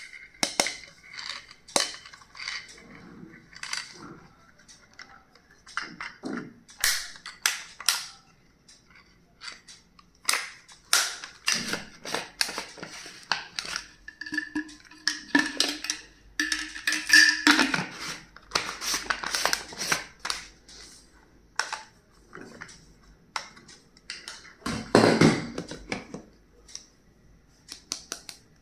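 Stationery and its plastic packaging handled close up: irregular crinkling, clicks and taps, with a short squeak-like tone twice around the middle.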